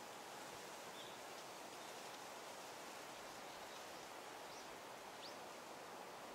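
Quiet outdoor ambience: a steady faint hiss with a few brief, faint bird chirps, one about a second in and two more around four and a half to five seconds.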